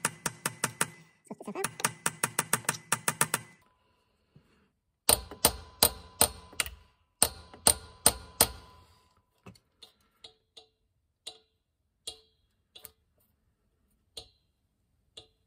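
Hammer striking a metal drift to drive a new selector-rod oil seal into the back of a classic Mini gearbox: quick runs of sharp taps, several a second, for about the first eight seconds. After that come slower, lighter single taps about a second apart.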